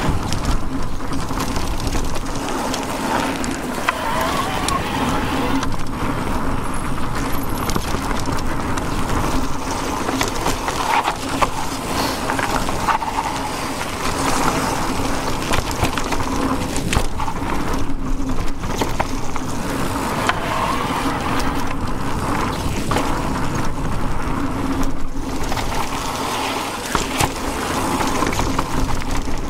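E-mountain bike riding along a forest trail: steady rolling and wind noise, with a constant hum and scattered clicks and rattles from the bike.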